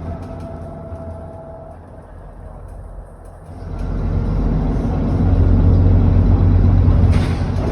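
ADL Enviro400 double-decker bus engine heard from on board. It dies away over the first three seconds with a short steady whine, then picks up again about three and a half seconds in and pulls hard. A brief rush of noise comes near the end.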